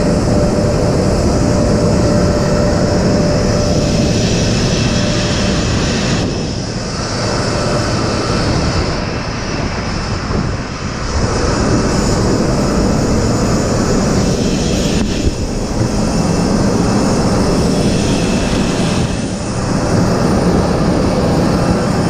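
Jet aircraft engine noise: a loud, steady rush, with a faint steady whine for the first six seconds or so.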